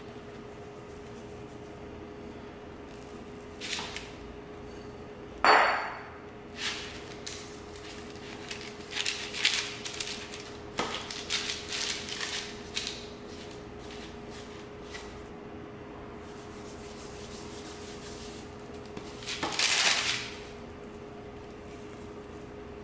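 Hands handling pizza dough in a parchment-lined metal baking pan. A sharp knock comes about five seconds in, then scattered rustles and taps of dough on paper, and a longer rustle a few seconds before the end, over a steady hum.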